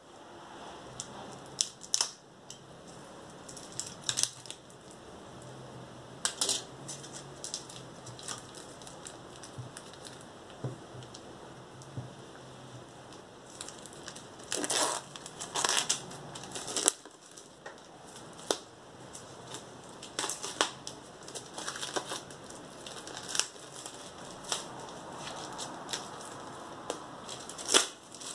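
Plastic shrink-wrap being torn open and peeled off a hardcover book, crinkling and crackling in irregular bursts.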